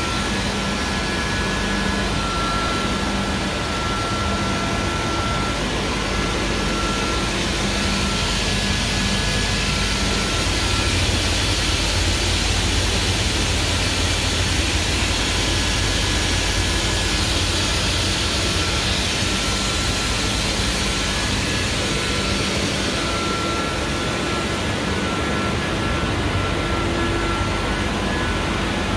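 Steady drone of running industrial machinery in a machine shop, with a constant low hum and a thin steady whine; it grows a little louder for several seconds midway.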